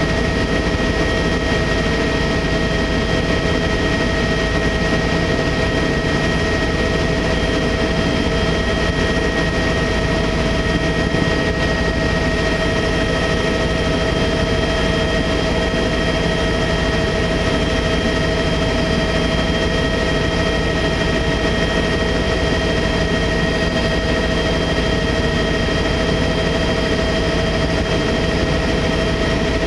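Tour helicopter in steady flight, heard on board: a constant engine and rotor drone with a steady high turbine whine over it.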